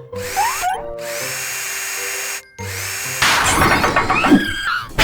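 Cartoon sound effect of a power drill: it spins up, then whirs steadily for about two seconds and stops briefly. Louder, busier tool noise with whines follows over background music.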